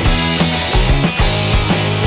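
Background music with a driving drum beat and a steady bass line.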